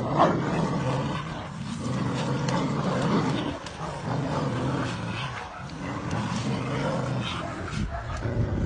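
Rottweilers and a Caucasian Shepherd Dog growling during rough play-fighting: a deep, near-continuous growl that dips briefly a few times, with scuffling mixed in.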